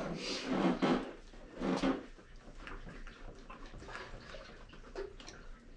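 Suzuki GSX-S750's front suspension forks being pushed down and bounced twice, each compression a short loud swishing push, followed by faint clicks and rattles. The forks are being bounced to settle the front wheel in line with them before the clamp bolts are tightened.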